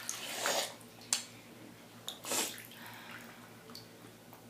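Bathwater sloshing and splashing in a filled tub as a person moves in it, in short swells, with a sharp click about a second in.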